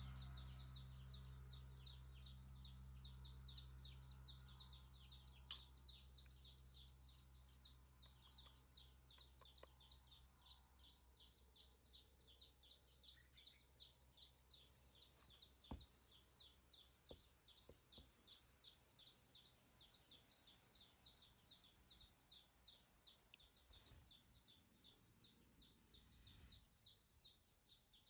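Faint high chirping repeated steadily about three times a second, over a low hum that fades away in the first few seconds, with a few soft ticks.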